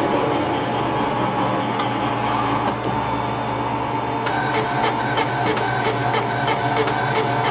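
Experimental electronic soundtrack: a dense, steady drone of many held tones, joined about four seconds in by a quick, regular mechanical clicking with short chirping tones, like a machine's rhythm.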